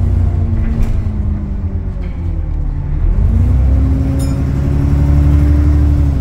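Engine of Go-Ahead London bus E262, heard from inside the passenger saloon. It runs low at first; about three seconds in the revs climb quickly as the bus accelerates, then hold steady at the higher pitch.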